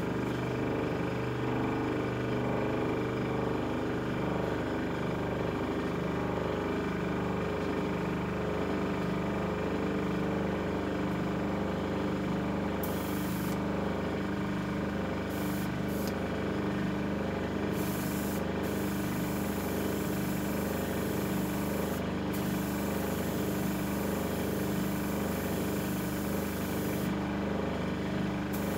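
Small airbrush air compressor running steadily with a low, pulsing hum, and the hiss of an airbrush spraying aluminium paint that comes and goes in stretches from about halfway through.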